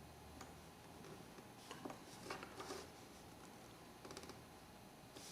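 Near silence broken by a few faint, light clicks and taps as the small metal parts and screws of a gas lighter are handled during reassembly.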